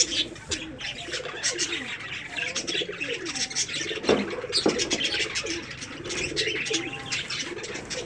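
Many birds calling at once: low, gliding cooing calls under a busy, continuous chirping.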